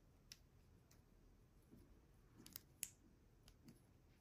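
Near silence with a handful of faint, sharp clicks as small plastic Kinder Surprise toy pieces are handled and pressed together, several coming close together a little past the middle.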